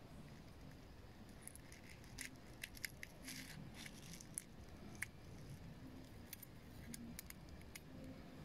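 Faint scattered ticks and light scratches of metal tweezers picking a small spring out of a wad of steel wool, starting about two seconds in and going on for some five seconds, over quiet room tone.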